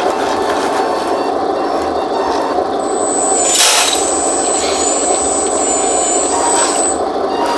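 Electric hydraulic pump of a 1:14-scale RC skid steer loader running steadily. A thin high whine joins about three seconds in and stops near the end, with a short burst of scraping noise shortly after it starts.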